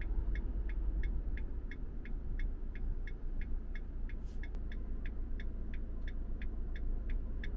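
A camper van's indicator flasher clicking steadily, about three clicks a second, over the low hum of the idling engine while the van stands at the roadside.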